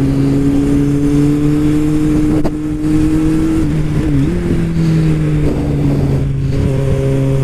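Kawasaki Z750's inline-four engine pulling under way over low wind rumble. Its pitch climbs slowly, dips and jumps back up about four seconds in, then slowly falls.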